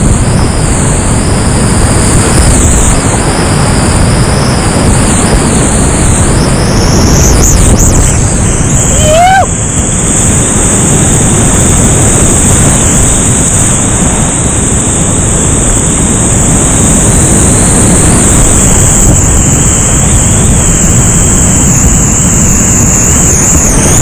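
Whitewater of a creek running at high water: a loud, steady rush of water. A short rising whistle-like tone comes about nine seconds in.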